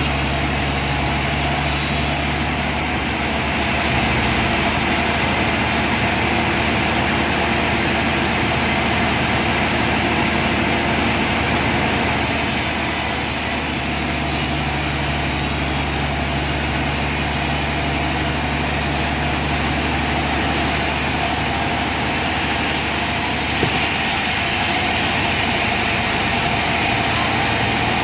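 Sawmill machinery running steadily, a continuous mechanical drone with a steady low hum under it.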